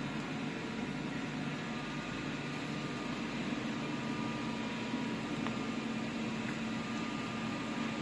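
Machinery of a running PET bottle flake washing line giving a steady, even hum over a wash of noise.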